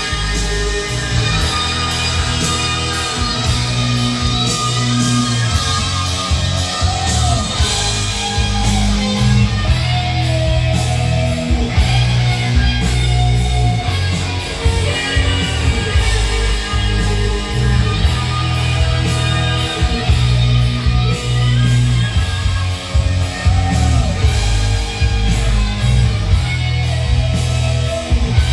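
Rock music with heavy guitar, a steady beat and strong bass, played loud through a Philips FWC555 mini system's Sony ZUX9 speakers at maximum volume.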